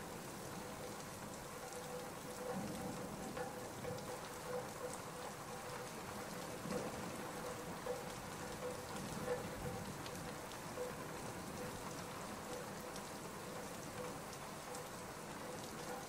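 Steady rain falling, with scattered small ticks of drops.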